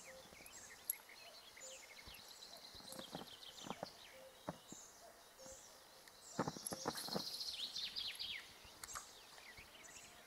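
Small birds chirping and singing faintly, with a busier run of chirps from about six to eight seconds in, and a few soft clicks in between.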